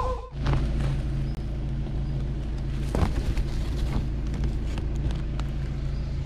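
Vehicle engine idling steadily with a low hum. A single sharp knock sounds about halfway through.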